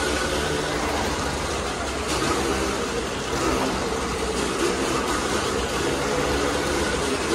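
Motorcycle engine running as the bike circles the vertical wooden wall of a Wall of Death. The engine sound swells and fades each time the bike sweeps past, every second or two.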